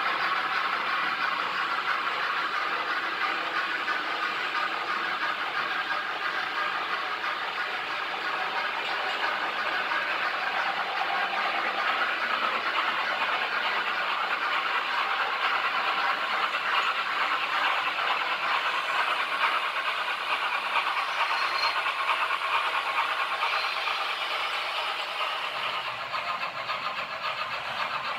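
Model railway train running on the layout's track: a long train of flat wagons hauled by a camouflaged BR 42 steam locomotive model, giving a steady rolling rattle of many small wheels on the rails together with the hum of the locomotive's motor.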